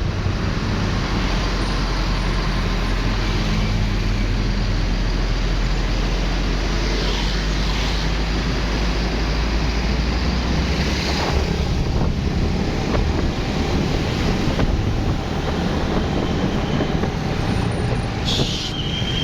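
Road traffic in a slow-moving jam, vehicle engines running. A steady low rumble drops away about ten seconds in, and a brief high tone sounds near the end.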